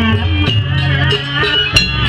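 Live music from a Banyuwangi barong and jaranan ensemble: a held, wavering melody line over drums, with a sharp strike near the end.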